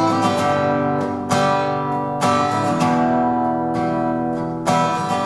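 Acoustic guitar strumming chords, each left to ring for about a second before the next stroke.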